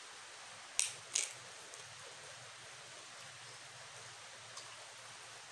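Steady hiss of rain falling. About a second in come two sharp crunches of chewing a mouthful wrapped in fresh leafy vegetables.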